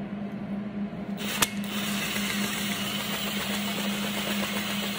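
A cordless power driver spins the adjusting shaft of a semi-truck brake slack adjuster, so that its worm gear turns the engine stand's mounting head. The tool starts with a click about a second and a half in and then runs steadily, over a steady low hum.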